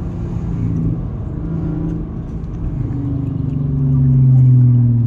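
A 2012 Audi A7's supercharged 3.0-litre V6 running at low city speed, a steady engine and exhaust drone over road noise, swelling louder about four seconds in. It is heard from inside the cabin with the windows down.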